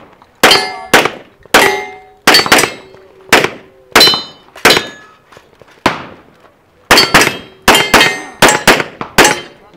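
Rapid pistol fire from a Glock 34 9mm at steel targets, about eighteen shots at roughly two a second, each followed by the ring of a struck steel plate. There is a short pause about six seconds in, then a quicker string.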